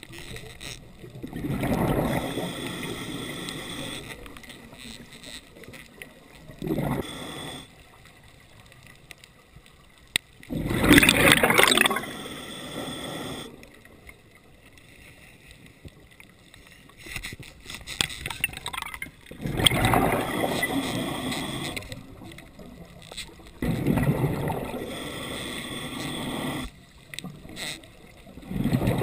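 Underwater sound of a diver breathing through a regulator: bursts of exhaled bubbles every several seconds, the loudest about eleven seconds in, with quieter spells between.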